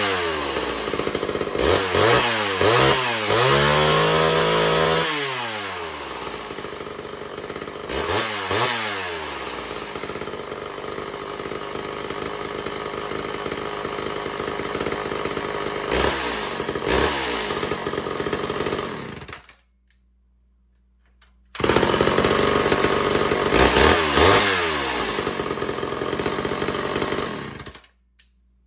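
Homelite Super XL two-stroke chainsaw, just started from cold, idling and being revved up and back down several times. About two-thirds of the way in it stops, is running again a couple of seconds later, is revved once more, and stops again near the end.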